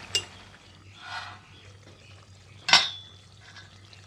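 A metal pan lid knocking against a steel kadhai: a light click near the start, a short soft scrape about a second in, then one sharp ringing clink about two-thirds of the way through. A low steady hum runs underneath.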